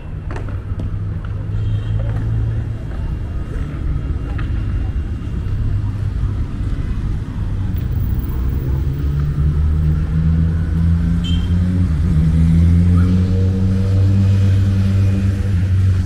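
Motor vehicle traffic: a heavy engine rumble that grows louder over the second half, its pitch rising slightly as the vehicle pulls away or passes.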